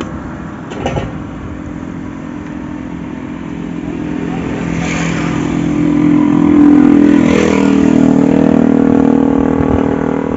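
A motor vehicle's engine passing on the road close by, growing louder to a peak about seven seconds in and then fading, with a brief light clatter about a second in.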